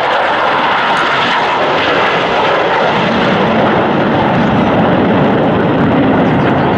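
Jet engine noise from a formation of eight KAI T-50B jets, each with a single F404 turbofan, passing overhead. It is a loud, continuous rush that grows deeper as the formation goes by.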